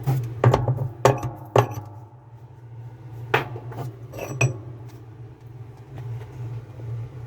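Metal tools and washer parts clinking and knocking as they are handled and set down: four sharp clinks in the first two seconds and two or three more about halfway through, over a steady low hum.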